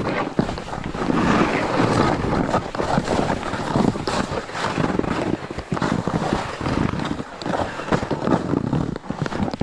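Snowboard sliding and carving through snow, the edge scraping in irregular surges, with wind rushing over the microphone.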